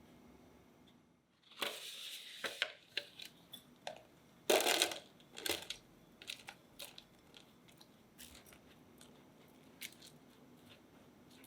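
Biscuits being crushed for a cheesecake crust: irregular crunching and crackling in bursts, loudest about halfway through, then a few scattered crackles.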